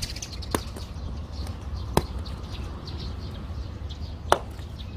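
Boundary wire being pressed into the grooves under a robot mower charging station's plastic baseplate, giving three sharp clicks spread over the few seconds, the second and third the loudest, over a steady low rumble.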